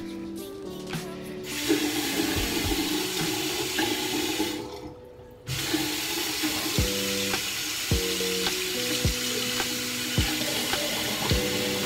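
Water running from a tap into a sink, stopping briefly about halfway through and then running again.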